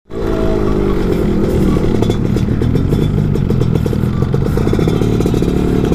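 Yamaha F1ZR's 110 cc two-stroke single-cylinder engine running while the bike is ridden, at fairly steady revs.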